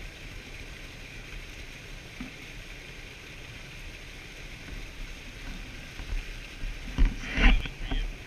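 Shallow river current rushing close to the microphone. Near the end come two loud splashes as a steelhead trout is lowered back into the water.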